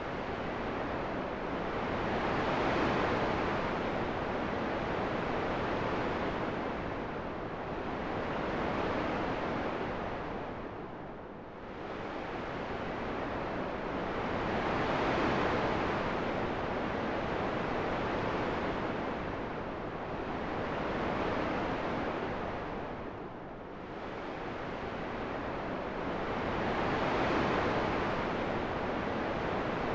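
Wind: a steady rushing noise that rises and falls in slow gusts, with two deeper lulls about twelve seconds apart.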